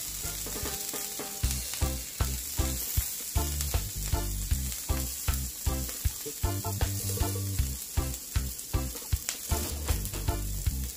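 Hot oil and butter sizzling in a cast-iron skillet as garlic cloves fry in it, with a steady hiss over a regular low beat.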